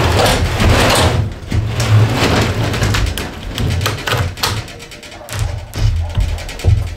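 A large sheet of plywood being slid and scraped across a wooden subfloor as it is shifted into place, in uneven rasping pushes with a few knocks.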